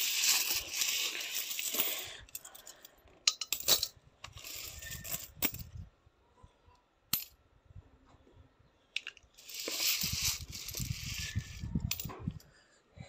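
Loose coins jingling and clinking as a child's hands sweep and scoop through a pile of them: a long shuffling rush of coins in the first two seconds and again around ten seconds in, with single coin clicks in between.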